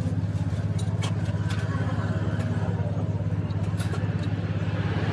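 An engine running steadily at idle, a low pulsing hum, with a few light metallic clicks of hand tools working on the differential's pinion flange.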